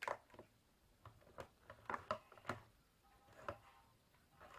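Faint, scattered plastic clicks and knocks as a hand mixer and its coiled cord are set down and shifted on a plastic digital kitchen scale.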